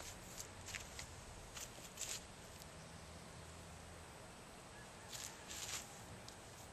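Quiet outdoor background with a low hum and a few faint, scattered rustles and clicks of someone moving about and handling things nearby.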